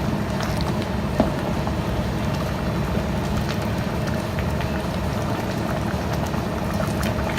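Lomi noodle soup, thickened with cornstarch, boiling in a pot over a gas flame: a steady low rumble of bubbling and burner, with a faint click about a second in.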